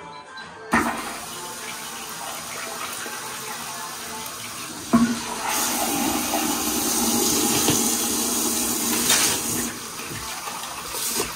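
Tankless electric toilet flushing off its direct water supply. A sharp click about a second in sets off a steady rush of water into the bowl. A second sharp click a few seconds later brings a louder surge, which eases off and then cuts off suddenly at the end, as the solenoid valve shuts the flow.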